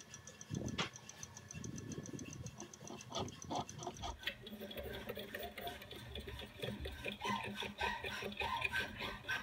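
Light, fast, even ticking with a couple of handling knocks, then from about four seconds in the watchmaker's topping tool runs: rapid, busy clicking over a steady whirr as its cutter works round the teeth of a small brass wheel.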